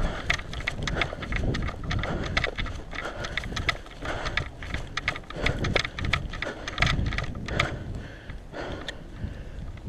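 Footsteps and the knock and rustle of a person's gear as they move on foot, an irregular run of knocks over wind rumble on the body-worn microphone, easing off near the end.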